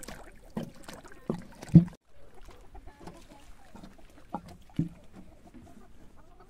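Chickens clucking among scattered knocks, the loudest a sharp thump a little under two seconds in.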